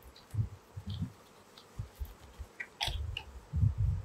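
Hands handling paper instruction booklets and a cardboard box: soft paper rustling and dull bumps, with a short crisp crinkle about three seconds in.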